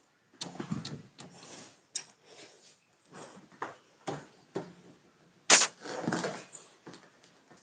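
Kittens at play: scuffling and rustling with irregular knocks and clicks, the loudest knock about five and a half seconds in.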